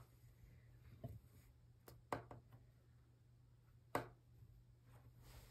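Near silence: quiet room tone broken by a few faint, short taps from a pencil and hands on a paper worksheet and desk. The loudest tap comes about four seconds in.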